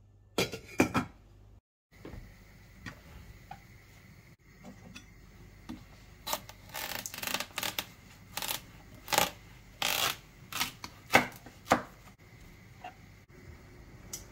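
A metal spoon clinking against a stainless steel saucepan while stirring syrup, several sharp clicks in the first second. After a short break, a knife cuts through a whole watermelon on a wooden board: a run of loud cracks and crunches of the rind splitting, clustered in the middle and latter part, with softer knocks of the knife and melon on the board.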